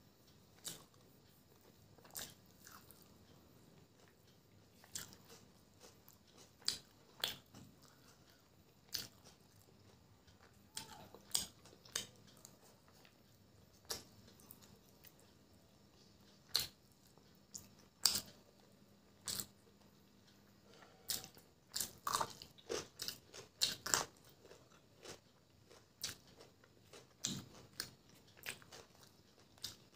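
Close-up eating sounds of chicken biryani eaten by hand: chewing with short, sharp wet clicks and lip smacks every second or two, bunching into a quick cluster a little past the middle.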